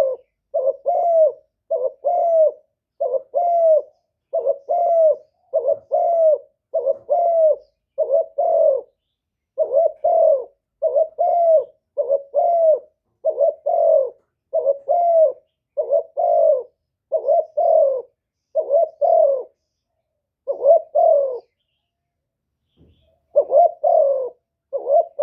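Spotted dove (cu gáy) cooing: a steady series of short, low coos, about one a second, with a pause of about two seconds near the end. This is the 'one-ending-note' call used as a trapping lure.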